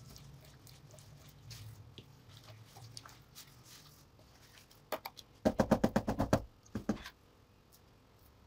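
Thick batter being mixed in a steel bowl, with soft wet squelches and small clicks. About five seconds in comes a rapid run of about a dozen sharp clacks over a second and a half, utensils rapping against the steel bowl.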